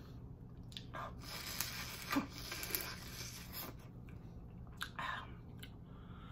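Close-miked eating of a shell-on giant tiger prawn: crackling bites and shell-tearing clicks, with a longer noisy stretch of sucking the juice out of the prawn in the middle.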